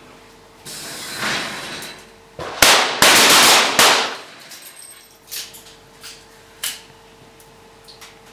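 A rapid cluster of pistol shots from several shooters on a 25 m range, fired together over about a second and a half near the middle, during the duelling stage of 25 m sport and centre-fire pistol. A hiss comes before them, about a second in, and a few lighter clicks follow.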